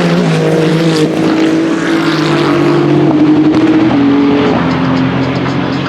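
LMGT3 race car engine running hard, fitted with a 100 dB-limited muffler; its pitch steps down several times as the car shifts down through the gears.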